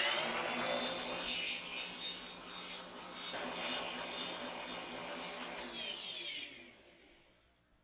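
Electric stand mixer running, its whisk beating heavy cream that has been whipped very thick and dense. Near the end the motor winds down and stops.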